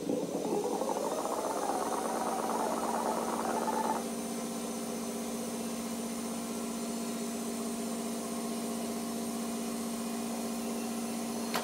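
Studer A80/R reel-to-reel tape recorder fast-winding forward, its tension-roller bearings freshly replaced. The reels spin up with a rising whir for about four seconds, then wind on at speed with a steady hum.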